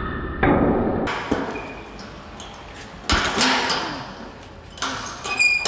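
Bare foot teeping a hanging Muay Thai heavy bag: three dull thuds a couple of seconds apart, each followed by the bag's swing, with a short metallic clink near the end.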